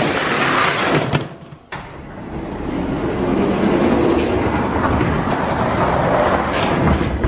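Two Hot Wheels die-cast monster trucks rolling fast down an orange plastic track: a steady rolling noise of small plastic wheels on the track that drops out briefly about a second and a half in, then carries on.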